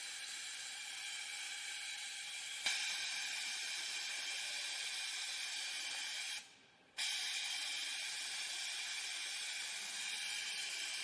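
Cylinder-bed interlock sewing machine running at high speed with a steady high whine. It gets a little louder with a click about two and a half seconds in, stops for about half a second just past the middle, then runs on.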